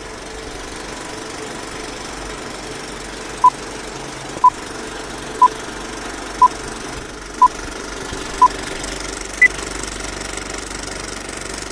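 Old-film countdown intro: a film projector's steady rattle and hiss, with a short beep once a second, six times, starting about three seconds in, then one higher beep near the end.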